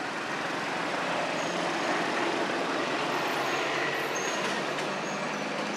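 Steady noise of a motor vehicle running, swelling a little around the middle.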